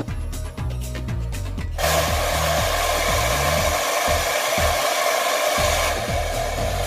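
Handheld 1800-watt hair dryer switched on about two seconds in, then blowing with a steady rushing noise, a little duller near the end. Background music with a bass beat plays under it.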